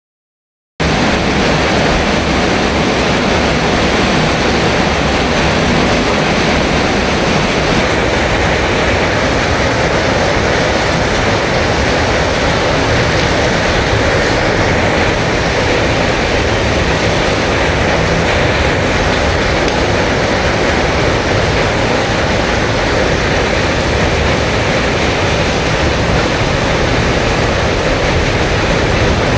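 Heavy rain pouring down in a loud, steady, dense hiss that starts suddenly just under a second in.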